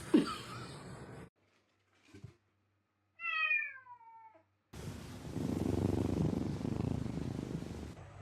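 A house cat meows once, a single drawn-out call falling in pitch, about three seconds in. A few seconds of steady low noise follow.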